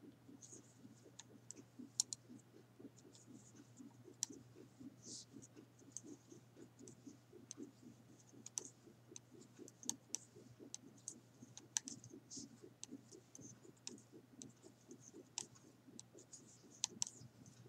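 Faint, quick clicking of metal knitting needles with a soft rustle of yarn, in a steady working rhythm of several small clicks a second.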